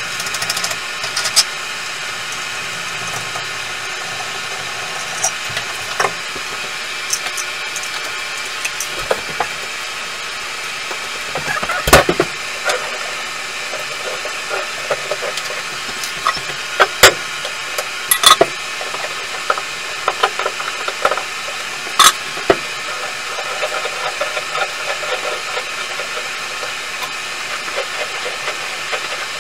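Scattered sharp knocks and clicks of hand tools working against a bathtub, a few of them loud, over a steady hiss.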